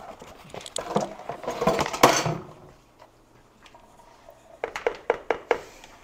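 Kitchen utensils and containers being handled: a noisy swell that builds to a peak about two seconds in and fades, then a quick run of sharp clinks near the end.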